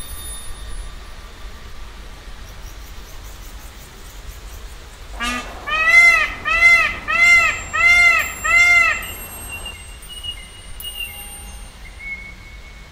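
A bird calling a run of about six identical arching notes, a little over one a second, starting about five seconds in, over faint outdoor background.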